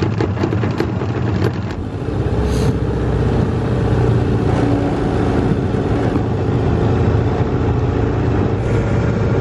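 A motorboat engine running steadily at speed, with the rush of water and wind past the hull. A run of quick knocks comes in the first second and a half.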